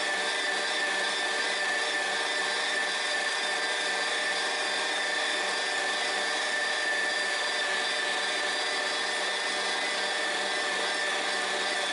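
Electric meat grinder running steadily under load as it grinds deer meat, a constant motor whine.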